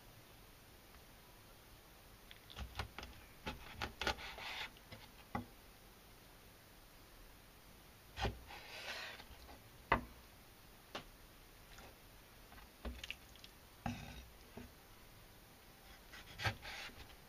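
Kitchen knife cutting young yellowtail (inada) fillets on a wooden cutting board. Faint, scattered taps of the blade on the board come between short slicing and scraping strokes through the flesh.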